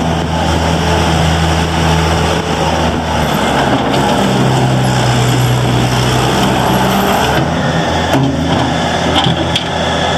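Bobcat T300 skid steer loader's diesel engine running steadily, its speed dipping about three seconds in and picking back up a few seconds later.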